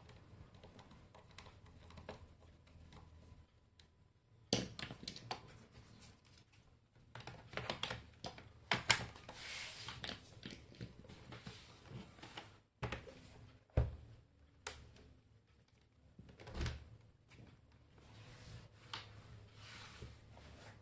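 Irregular clicks, taps and a few sharper knocks with some rustling, from hands handling a laptop and its small parts at close range.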